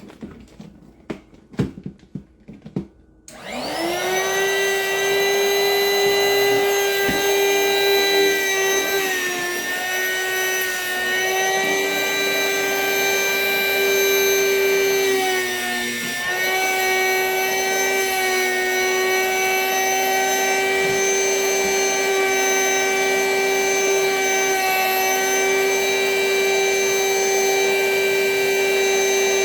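A few clicks of handling, then a vacuum cleaner switches on about three seconds in. Its motor whine rises to a steady high pitch, dipping briefly twice as the load changes while it draws the air out of a bag of plush toys to compress them.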